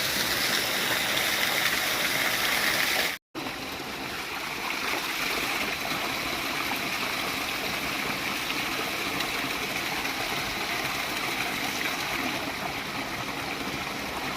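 Steady rushing of flowing water at a waterfall. About three seconds in there is a brief dropout, after which the water carries on a little quieter and duller.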